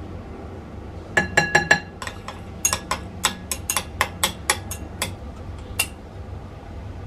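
Metal chopsticks beating egg and sliced okra in a glass bowl, clinking against the glass: a quick run of four ringing clinks about a second in, then a steady series of sharp clicks, about three a second, that stops about six seconds in.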